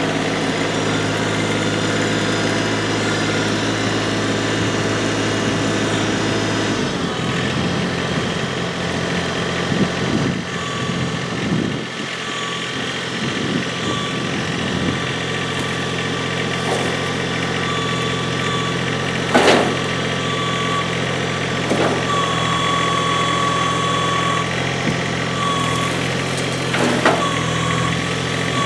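LS MT125 sub-compact tractor's diesel engine running steadily, its note shifting about seven seconds in as the loader works. An on-and-off high whine comes in during the second half, with a couple of sharp knocks.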